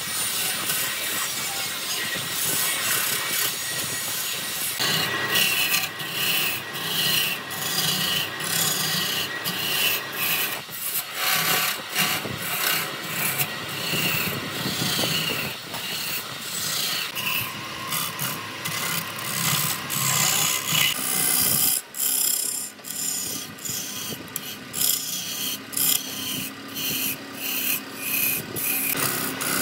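Wood being scraped by hand in rapid repeated strokes, rasp- or sandpaper-like, with a faint steady hum underneath.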